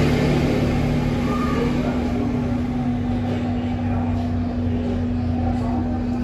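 A steady low hum over constant background room noise.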